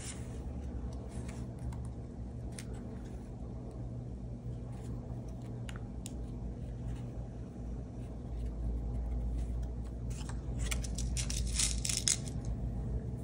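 Hands working tiny metal brads into card stock: faint clicks and scrapes of paper and metal. About ten seconds in, the crackly rustle of a clear plastic packet of brads being handled. A steady low hum runs underneath.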